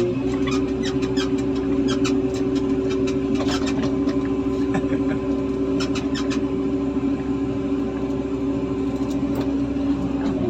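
Heavy diesel machinery engine running steadily with a constant hum. A quick scatter of sharp clicks and squeaks runs over the first six seconds or so, then dies away.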